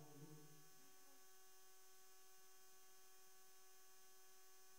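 Near silence with a faint, steady electrical hum of a few even tones; a last sung note fades out in the first second.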